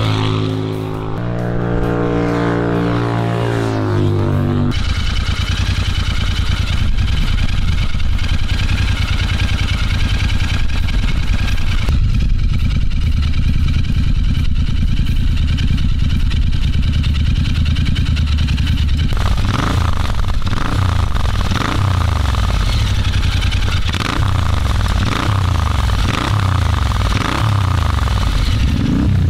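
Royal Enfield 650 parallel-twin running through S&S tapered cone slip-on mufflers. First the bike is ridden past on the road with dB reducers fitted, its exhaust note stepping to a new pitch. About five seconds in comes an abrupt change to the bike running close up without dB reducers, first at a steady pulsing idle, then from about 19 s in with repeated throttle blips. Near the end, with the dB reducers back in, the revving goes on.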